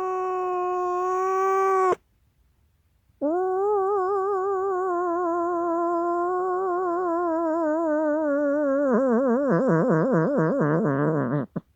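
Angry cat yowling: one drawn-out call ends about two seconds in, then after a short pause a second, longer yowl whose pitch wavers more and more strongly toward the end before it cuts off.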